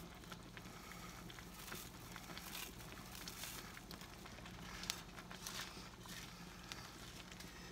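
Dry rice vermicelli noodles crumbled and snapped by hand over a pot of soup: faint, scattered crackles and rustles, with a wooden spoon stirring them in near the end.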